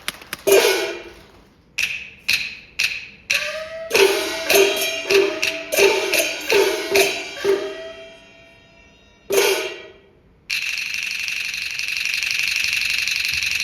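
Chinese opera percussion: sharp wooden clapper strikes and small gong strokes whose ringing pitch bends, in an irregular rhythm that stops about eight seconds in. After a single strike, a steady noisy wash begins about ten and a half seconds in.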